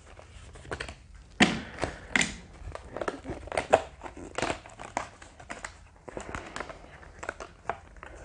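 Die-cut cardboard pieces of a board game's birdhouse dice tower being punched out of their punchboard: irregular snaps and crackles of cardboard, the two loudest about a second and a half and two seconds in.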